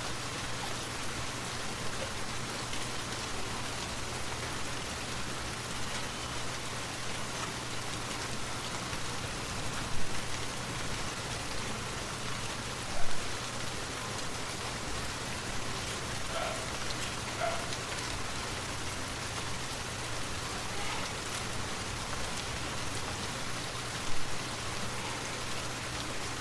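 Forest waterfall: a steady, even rush of falling water, with three brief louder splashes or knocks standing out, about ten seconds in, a few seconds later, and near the end.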